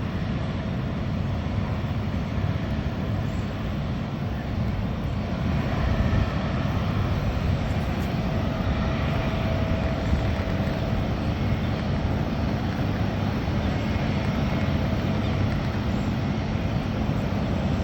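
Jet airliner turbofan engines running, a steady loud rumble with a faint whine that comes and goes.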